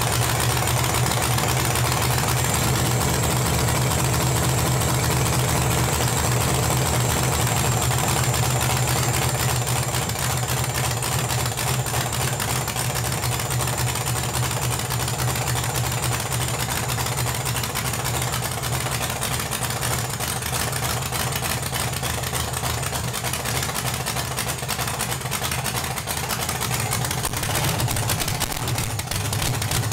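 Freshly swapped LS V8 in a Chevy S-10, idling steadily and loudly through open zoomie header pipes just after its first start.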